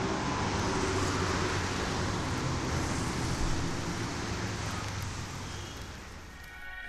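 Steady road traffic noise, a hum of passing cars, fading out near the end as soft music comes in.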